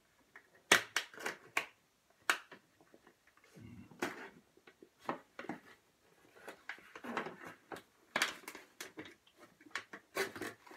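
A knife cutting and prying at the plastic wrapping of a pack of sliced cheese, making irregular clicks and crinkles of the plastic.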